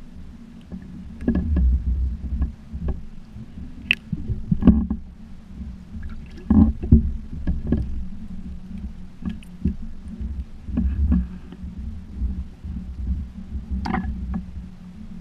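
Water sloshing and gurgling against a GoPro dome housing at the waterline, heard muffled through the sealed case as a swelling and fading low rumble over a steady low hum. Irregular sharp knocks and clicks of the housing bumping around, the strongest about four, five, six and a half, and fourteen seconds in.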